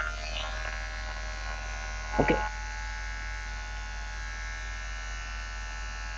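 Electric hair clippers running with a steady buzz, with one brief louder sound about two seconds in.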